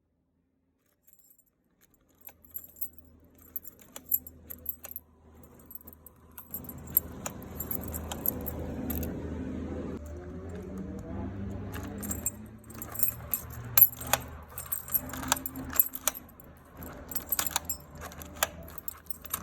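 Keys jangling with repeated sharp clicks as a key is worked in a newly installed deadbolt lock to test it. The clicks start about two seconds in and come thickest in the second half.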